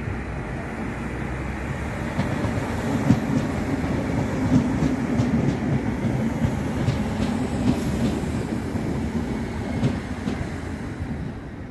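A Southern electric multiple unit train passing close by: a steady rumble of wheels on the rails with a scattered clickety-clack of clicks, building a couple of seconds in and easing off near the end.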